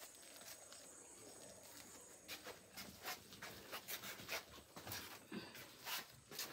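Faint, irregular clicks and taps starting about two seconds in: footsteps and light handling noise of a person walking while carrying things.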